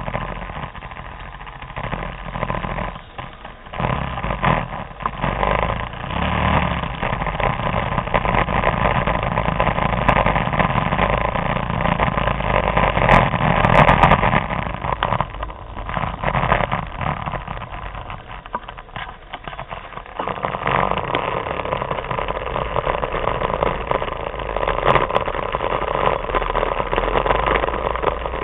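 Vespa scooters riding together in a large group, engines running, the sound swelling and easing off several times.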